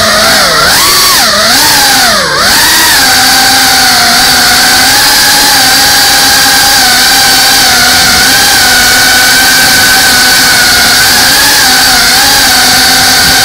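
FPV drone's electric motors and propellers whining as it flies. The pitch dips and recovers three times in the first couple of seconds as the throttle is eased and opened, then holds steady.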